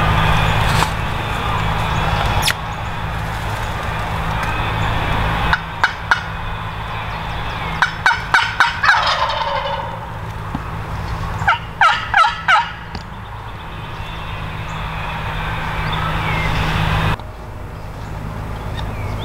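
Wild turkey gobbler gobbling three times, each gobble a quick rattling run of notes: once about six seconds in, again about two seconds later, and a third time about twelve seconds in.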